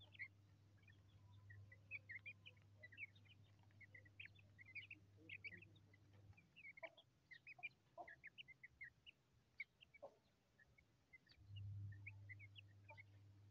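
Chicks peeping softly: many short, high peeps, scattered and overlapping, with a few lower clucks from the hen. A faint low hum drops out about six seconds in and comes back near the end.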